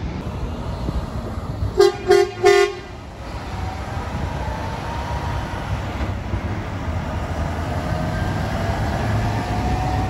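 A truck horn gives three short toots in quick succession, about two seconds in, as a reply to the arm-pump signal for a honk. After it, steady road traffic goes on, with a faint, slowly rising whine as a heavy truck pulls away.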